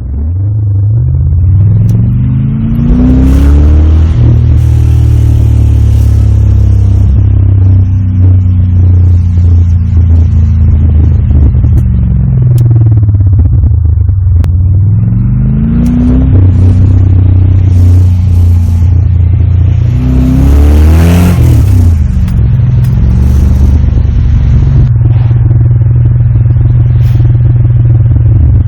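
Holden Calais V8 engine driving on the road, its note rising as it accelerates near the start and again a little past the middle, cruising steadily between and dropping as it slows.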